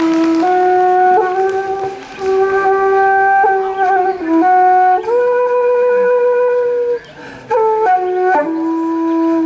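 A single wind instrument playing a slow melody of long held notes, one note at a time, with a brief break about seven seconds in.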